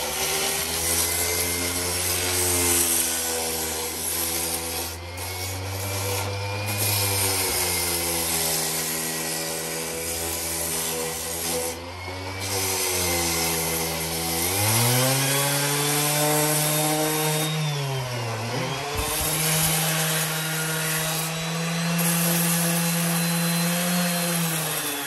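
Electric sander with a 60-grit pad grinding against concrete: a rasping hiss over the motor's steady hum. About halfway through the motor's pitch rises, dips briefly, then holds higher.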